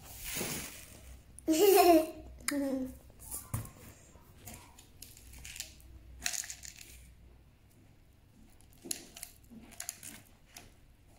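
Sugar sprinkles shaken from a small glass jar, rattling in the jar and scattering onto baking paper over a metal tray in several short bursts.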